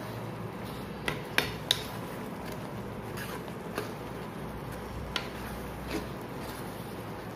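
Steel spoon stirring thick soya chunk manchurian gravy in a non-stick kadai, knocking and scraping against the pan. There are a handful of sharp clinks, three close together about a second in, over a steady low hiss.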